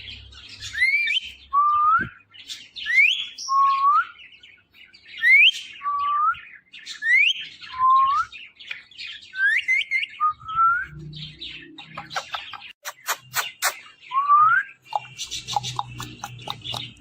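Ring-necked parakeet calling: a run of short rising whistled calls, each higher call followed by a lower one, repeating every second or two. These give way to a series of sharp clicks about two-thirds of the way through.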